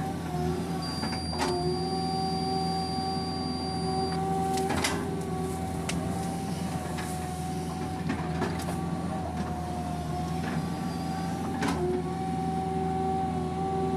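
Komatsu PC200 hydraulic excavator running steadily, heard from inside the cab: a constant engine hum with a steady hydraulic whine that dips briefly in pitch a few times as the arm and bucket work, and several short sharp clunks scattered through.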